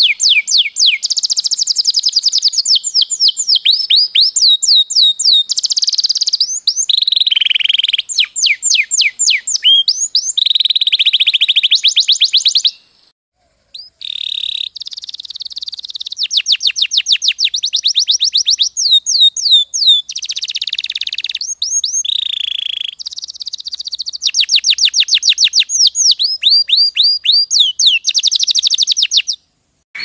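Domestic canary singing a long song of rapid trills, each trill a fast run of the same sweeping note repeated many times a second, switching to a new trill every second or so. The song breaks off briefly about 13 seconds in.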